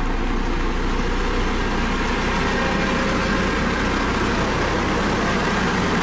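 Dynapac CC522 tandem asphalt roller's diesel engine running steadily with a low hum as the roller drives over fresh asphalt.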